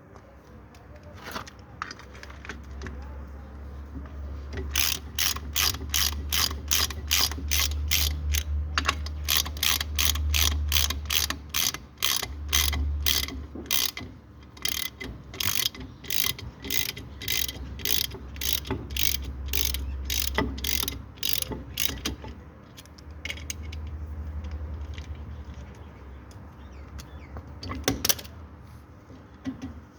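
A ratchet wrench clicking in a steady run, about two to three clicks a second, over a low rumble, then sparser clicks with two louder ones near the end. This is typical of working the bolts while removing a VAZ-2106 brake drum.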